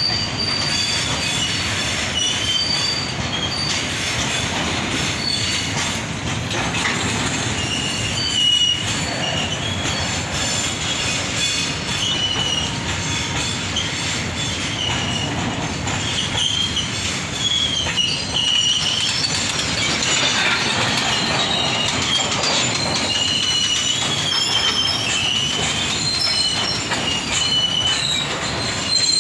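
A freight train of petrol tank wagons rolling past: the wheels rumble on the rails with a wavering high-pitched wheel squeal throughout. A couple of louder knocks come about eight seconds in and near the end.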